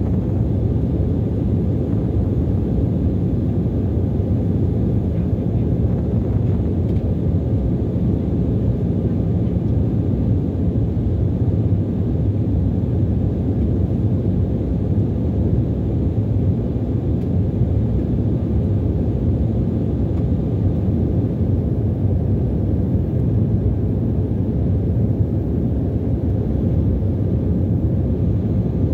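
Steady cabin noise of a jet airliner in flight: the low, even rumble of the engines and the airflow over the fuselage, heard from inside the cabin.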